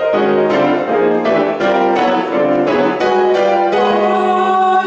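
Piano playing a song accompaniment, with chords struck about twice a second and the last chord held near the end.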